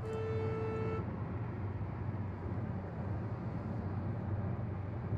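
Road and engine noise inside a moving car on a highway, a steady low rumble. A vehicle horn sounds one flat note for about a second at the start.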